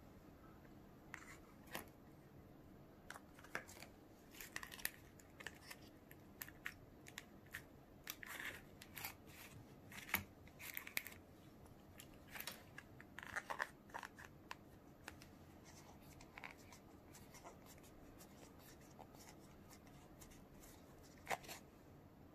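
Irregular light plastic clicks and scrapes: a small plastic spoon scraping candy dough out of a plastic Popin' Cookin' kit tray and pressing it into a round mould, with the trays knocking on the table.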